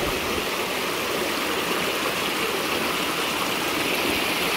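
Small rocky forest stream cascading over stones: a steady splashing rush of water.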